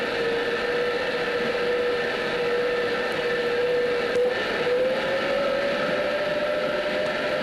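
Fell locomotive differential gearbox running on its test rig, driven by electric motors: a steady whine over mechanical noise. A click comes about four seconds in as the motor controller is turned, then the whine rises slowly in pitch as the speed is increased.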